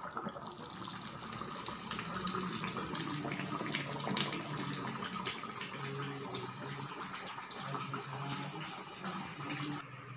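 Chicken and potato curry boiling hard in a metal wok, a steady bubbling with many small pops and spits. It cuts off abruptly near the end.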